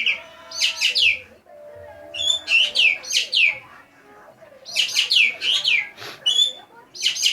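A green magpie (ekek geling) in full song, giving loud, sharp notes that sweep downward. The notes come in quick runs of two to four with short pauses between, over fainter, lower warbling.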